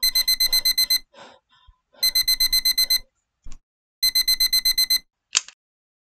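Digital alarm clock beeping: three one-second bursts of rapid, high-pitched beeps, about ten a second, with short pauses between them. About five seconds in, a single short hit is heard as a hand slaps down on the clock, and the alarm stops.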